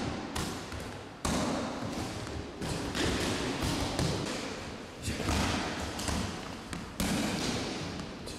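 Punches and kicks smacking into a focus mitt and arm shield, a quick irregular series of sharp hits, each ringing out in the echo of a large hall.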